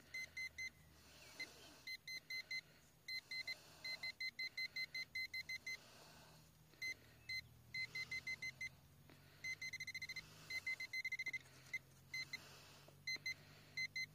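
Handheld metal-detecting pinpointer beeping in short, same-pitched bleeps as it is probed through loose soil. The beeps come in bursts that speed up and nearly merge into a continuous tone between about 9 and 11 seconds in, signalling a tiny metal target close to the tip: a microscopic fragment of aluminium.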